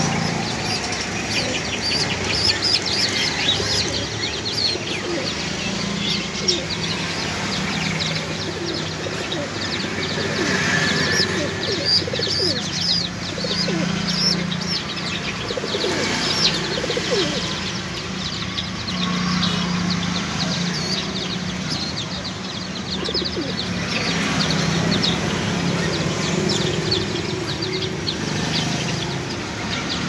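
Jacobin pigeons cooing: low coos, each lasting a second or two, repeated every few seconds over a constant twittering of many small birds.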